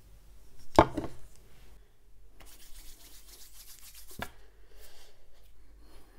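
A steel bowl set down on the table with a knock about a second in, then palms rubbing together, a steady rubbing noise from about two and a half seconds in, cut by a sharp tap near four seconds and fading after.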